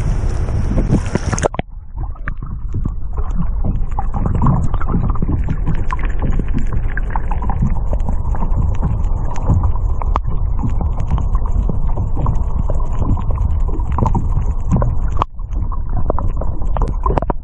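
Sea water heard through a waterproof action camera: bright splashing and wind noise at the surface, then, about one and a half seconds in, a sudden change to the dull underwater rumble of moving water, scattered with many small clicks and crackles.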